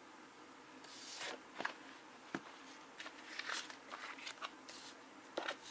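Irregular short crunches of close-up biting and chewing, starting about a second in, with gaps between them.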